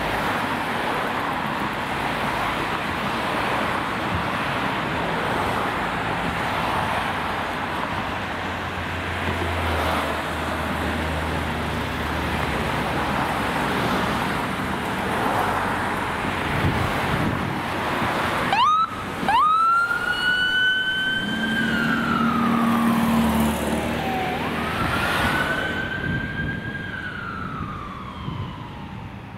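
Road traffic noise with a passing vehicle's engine hum. About two-thirds of the way in, an ambulance siren starts with a quick rising whoop and settles into a slow wail, sweeping down and back up over several seconds.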